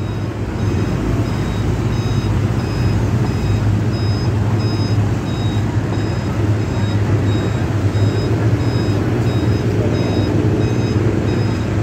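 Short high-pitched electronic beeps repeating about two a second over a steady low rumble and the general noise of the crowded quayside.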